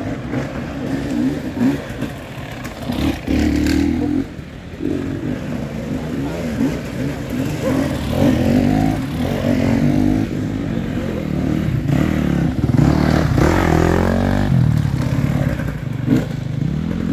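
Enduro dirt bike engines revving hard and dropping back again and again, the pitch rising and falling as the bikes climb and pass close by.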